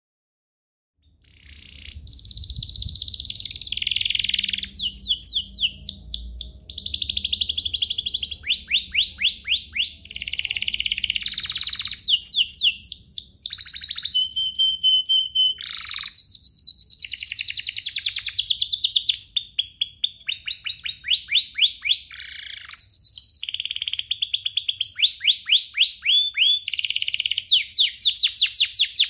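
Domestic canary singing a long, unbroken song that starts about a second in: rapid trills of quickly repeated notes alternating with a few held whistled notes.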